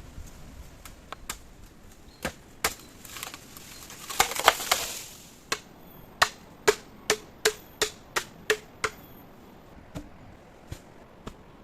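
A run of sharp, evenly spaced knocks, about three a second, like chopping or hammering. It is preceded by a few scattered single knocks and a short rustling burst.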